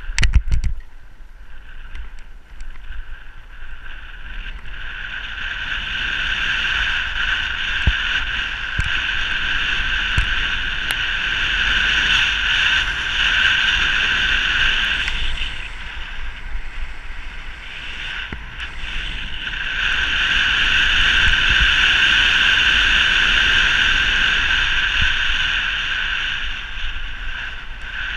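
Wind noise rushing over the microphone of a camera moving fast downhill, swelling and easing twice with speed, over a low road rumble. A few sharp knocks come in the first second.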